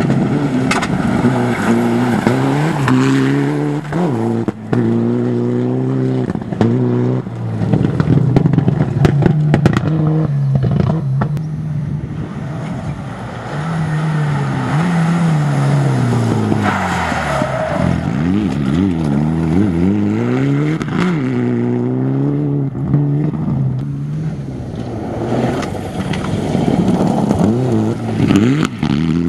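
Mitsubishi Lancer Evolution rally car's turbocharged four-cylinder engine revving hard on a gravel stage, its pitch climbing and dropping again and again through gear changes, braking and acceleration. Gravel scrapes under the tyres, with a few sharp cracks about ten seconds in.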